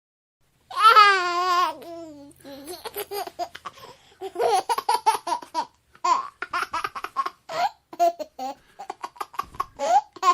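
A baby laughing: a loud, wavering squeal of laughter about a second in, then a long run of quick, choppy giggles.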